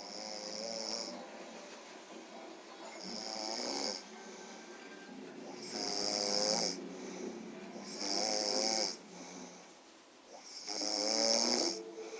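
A person snoring: about five snores roughly two and a half seconds apart, each a breathy hiss with a wavering tone.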